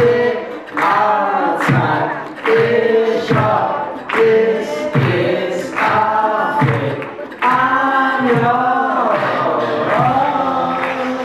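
Several young male voices singing together in harmony through microphones and a PA, over a steady, evenly spaced beat.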